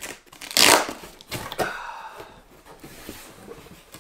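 Packing tape being torn off a cardboard box: a loud rip about half a second in, then a shorter squeaky peel and softer rustling of the cardboard flap.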